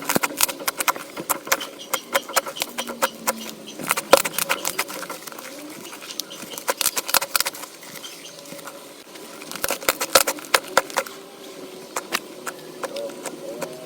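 Slime being squeezed and poked by hand, giving irregular wet, sticky clicks and pops that come in clusters.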